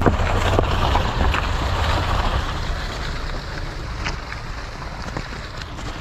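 Car tyres crunching and crackling over snow and ice, with many small cracks over the low drone of the moving car; the crackling gradually fades.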